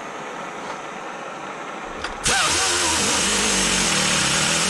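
Pneumatic angle grinder switched on about two seconds in and running flat out with loud air hiss, over the steady hiss of a torch heating the grinder.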